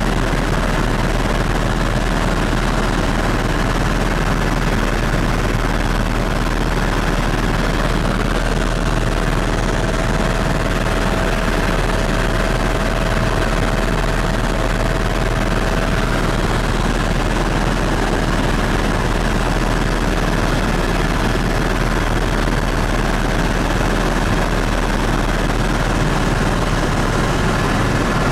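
Helicopter engine and rotor noise heard inside the cabin in flight: a loud, steady drone with a strong deep rumble underneath.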